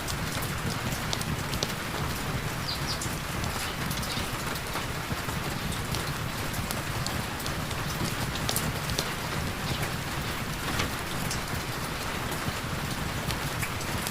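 Heavy rain falling steadily, an even rushing hiss with scattered sharp ticks of individual drops.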